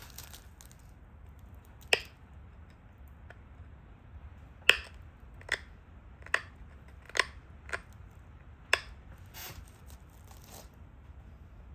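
Pressure flaking the edge of a stone Dalton point: seven sharp snaps, irregularly spaced, as small flakes pop off, followed by a short scratchy rubbing near the end.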